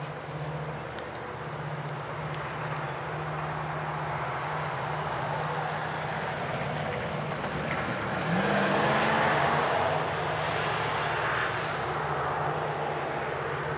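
EMD diesel freight locomotives working hard as they approach, a steady low engine drone that slowly grows louder. A louder rushing swell comes about eight seconds in.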